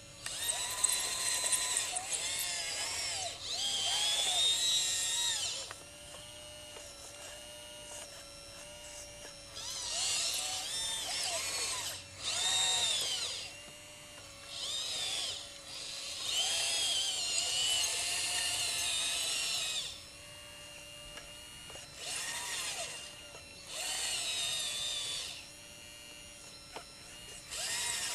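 Electric motors and hydraulic pump of a radio-controlled scale model Liebherr LR 632 hydraulic track loader whining in repeated bursts of one to four seconds, the pitch rising and falling as it drives and works its bucket, over a faint steady tone.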